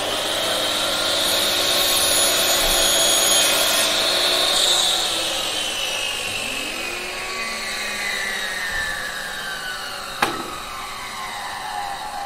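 Angle grinder running at full speed with a loud high whine. From about five seconds in, the whine falls steadily in pitch. A single sharp click comes about ten seconds in.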